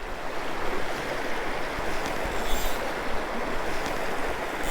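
Steady rush of a shallow river's flowing water.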